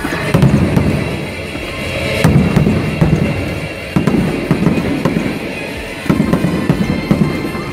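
Aerial fireworks shells bursting overhead: a run of deep booms every second or two, each with a rumbling tail, with music playing underneath.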